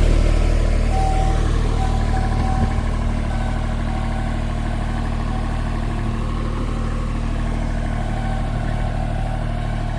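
Mini skid steer loader's engine running steadily while the loader carries a heavy attachment box of nearly 1,000 pounds.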